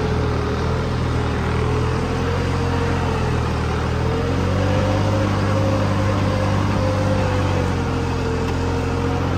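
New Holland 3630 tractor's three-cylinder diesel engine running steadily under load while pulling a tine cultivator, with a clear whine that wavers slightly in pitch. The engine note shifts a little about four seconds in.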